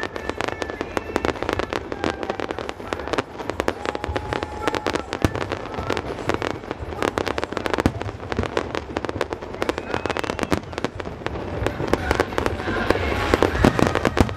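Aerial fireworks display going off continuously: a dense stream of crackles and pops, many a second, growing a little louder near the end.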